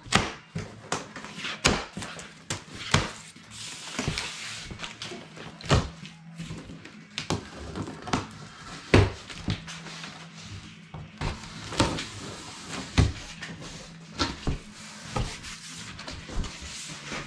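Saw parts and packaging being handled during unpacking: an irregular run of knocks, clunks and rustles, some sharp and loud, over a faint steady low hum.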